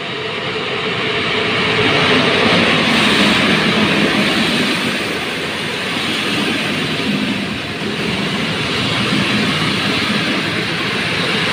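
EP07 electric locomotive and its train of passenger coaches rolling past along the platform. The noise swells over the first two to three seconds as the locomotive comes by, then holds as a steady rumble of coach wheels on the rails.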